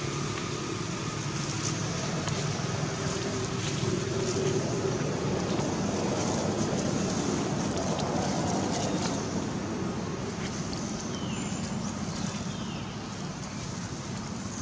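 Steady outdoor background rumble and hiss, with a few faint clicks and two faint falling squeaks late on.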